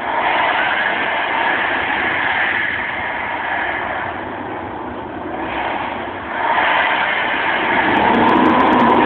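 Loud, distorted crowd cheering and screaming, swelling and easing, with a strong surge about two-thirds of the way through.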